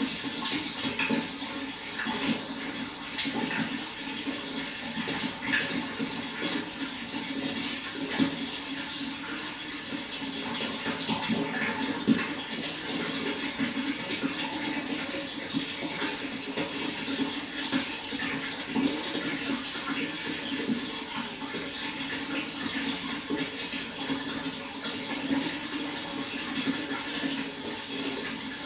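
Water flowing steadily, with a continuous rush and many small irregular splashes and trickles.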